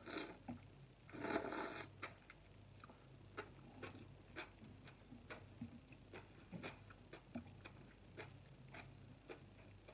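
A person slurping glass noodles close to the microphone, with a short slurp at the start and a longer one about a second in, then chewing with many small wet mouth clicks.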